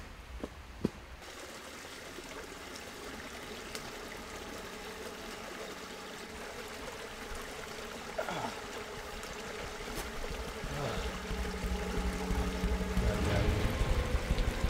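Two or three footfalls on dry leaves in the first second, then a steady rushing hush like running water. A low rumble builds and grows louder over the last few seconds.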